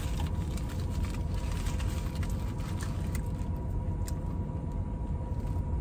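Steady low hum of a car running while parked, heard inside the cabin, with a few faint crinkles from the paper burger wrapper as a cheeseburger is bitten and chewed.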